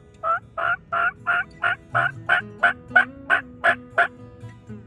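A series of about twelve turkey yelps, evenly spaced at about three a second.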